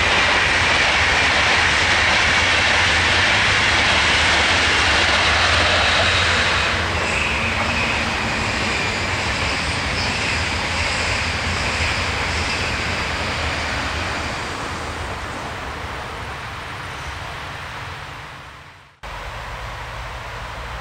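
Electric passenger train passing at speed: a steady rushing of wheels on rail with a high whining band over it, loudest for the first six seconds and then slowly fading as it runs away. Near the end the sound cuts off suddenly and a quieter, steady hum follows.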